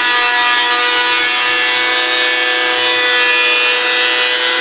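Electric hand planer running steadily as it planes an oak board: a constant whine over the hiss of cutting wood.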